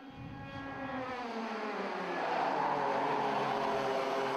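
Several two-stroke TKM racing kart engines running at speed, getting louder as they come nearer. Their pitch falls over the first couple of seconds, then holds steady.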